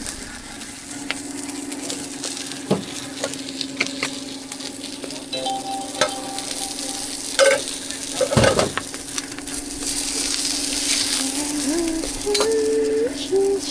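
Food frying and sizzling in a hot pan, with occasional sharp knocks of a cooking utensil against the metal over a steady low hum.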